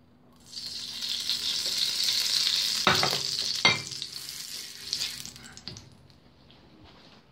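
Loud sizzling on a hot electric stove. It starts suddenly about half a second in and dies away over several seconds, with two sharp knocks about three and three and a half seconds in.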